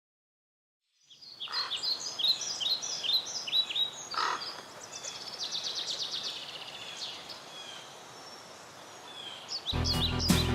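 Birds singing: a run of short chirps and whistled calls, then a fast, rapidly repeated trill, over a faint steady hiss of outdoor ambience. Music comes in near the end.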